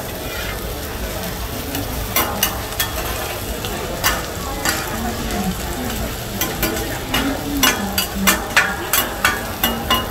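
Oil sizzling under crispy omelettes on a large flat griddle, with a metal spatula and ladle scraping and clacking on the pan; the clacks come thicker near the end.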